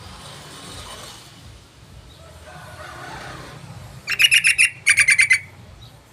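Yellow-vented bulbul (trucukan) calling: two quick bursts of rapidly repeated, chattering notes about four seconds in, each lasting about half a second. These are the calls used to lure the bird in.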